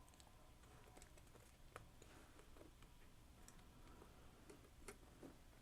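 Near silence with a few faint, scattered clicks and taps from handling electrolytic capacitors being fitted into a circuit board.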